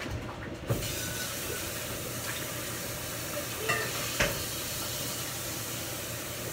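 Food sizzling in a frying pan: a steady hiss that starts suddenly with a knock about a second in, with a couple of sharp clinks around the middle.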